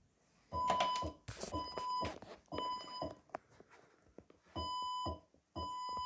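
Fire alarm evacuation tone in the temporal-3 pattern, from a recording of a Fire-Lite ECC-50/100 voice evacuation system. Three half-second beeps about a second apart, a pause, then two more, as the tone sounds between the spoken evacuation messages.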